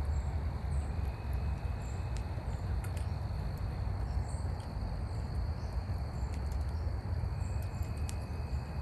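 Fire burning, with scattered faint crackles over a steady low rumble. A thin, steady high tone sits in the background.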